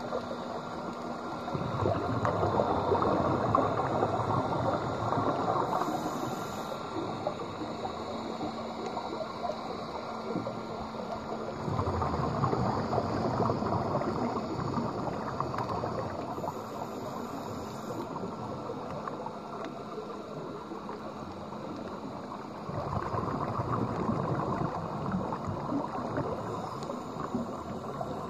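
Scuba regulator exhaust bubbles gurgling past the underwater camera: three long bubbly exhalations, roughly ten seconds apart, over a steady underwater background hiss.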